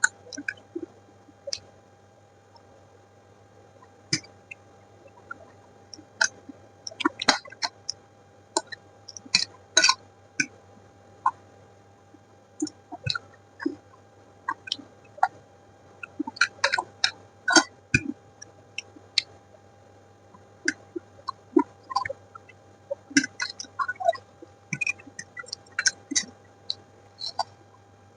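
Close-miked chewing and mouth sounds: irregular wet clicks and smacks in clusters, with short pauses between mouthfuls.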